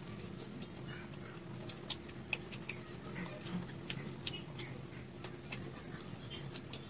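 Close-up eating sounds: a person chewing a mouthful of rice, with many small, irregular wet mouth clicks and smacks, while fingers squish and mix rice on a plate.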